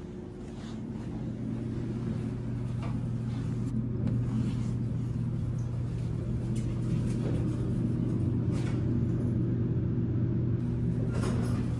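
Elevator hum while the car runs: a steady low electrical hum that grows louder over the first few seconds, with a few faint clicks from the buttons and doors.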